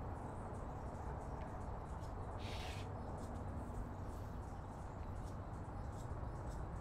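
Steady low outdoor rumble with a few faint light clicks and a brief hiss about two and a half seconds in.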